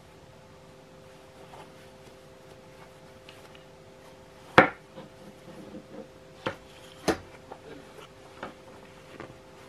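A washable cloth vacuum dust bag being unfolded and handled: quiet fabric rustling with several sharp clicks, the loudest about four and a half seconds in, and two more around six and a half and seven seconds.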